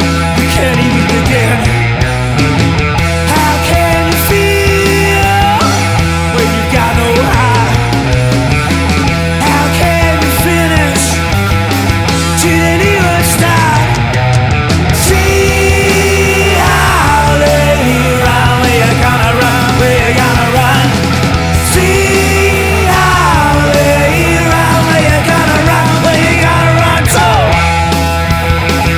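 Blues rock band playing at full volume: a steady drum and bass groove under distorted electric guitar, with a lead line of bending notes running over it.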